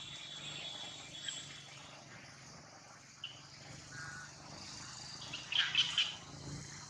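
Outdoor wildlife ambience of insects and birds: a steady high trill that fades out about a second and a half in, then a brief cluster of short chirps a little before the end.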